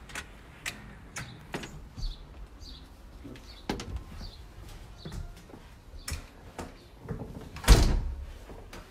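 A house's storm door and front door being opened and pushed shut, with latch clicks, knocks and footsteps. A door thuds shut near the end, the loudest sound.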